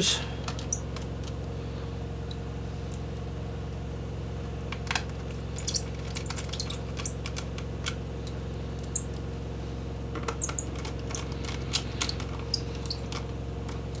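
Scattered small metallic clicks and taps of a small Phillips screwdriver and tiny screws as the screws holding the laptop's 2.5-inch drive are refitted, over a steady low hum.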